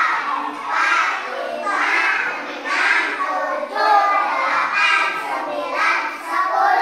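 A group of young children singing together with their teacher.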